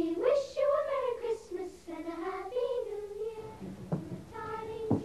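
A high solo voice sings a slow, gliding melody. About three and a half seconds in, the melody gives way to a single held note, with two short knocks near the end.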